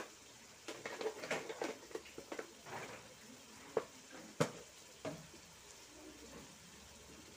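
Kitchen handling sounds: short scrapes and rustles of utensils and containers, then two sharp knocks about half a second apart near the middle.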